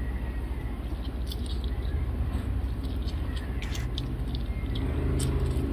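A steady low rumble, with a few faint clicks and drips as a sweet orange is squeezed by hand over a glass.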